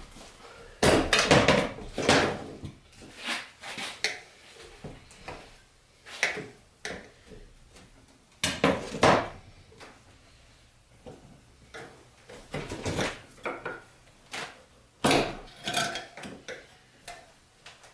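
Flathead screwdrivers clinking and scraping against a moped's steel wheel rim as the tire bead is levered back on, in irregular clusters of metallic clanks with quiet gaps between.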